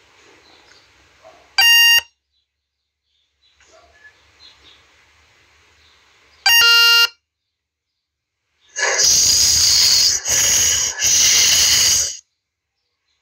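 Two short electronic beeps, about five seconds apart, from a phone sound effect, followed by about three seconds of loud static hiss that cuts out twice.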